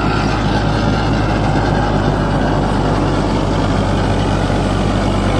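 Kubota MU4501 tractor's four-cylinder diesel engine running steadily under load while its 8-ft rotavator churns through the soil.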